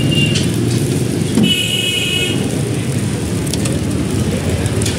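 Street traffic running steadily, with a vehicle horn sounding once for about a second, about a second and a half in.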